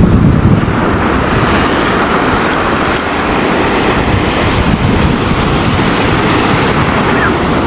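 Rough sea surf breaking and washing up the sand in a steady rush, with wind buffeting the microphone, heaviest in the first moment.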